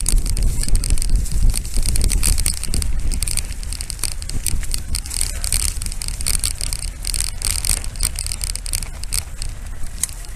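A mountain bike riding over a rough dirt track: tyres crunching and the bike rattling, with many short clicks, under wind rumbling on the microphone. The wind rumble eases after the first couple of seconds.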